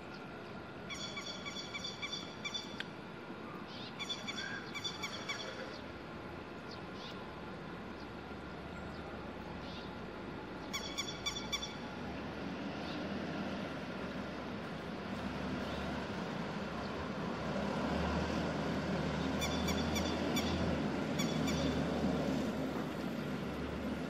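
Grey-headed lapwing calling in four short runs of quick, sharp repeated notes. A low rumble builds through the second half.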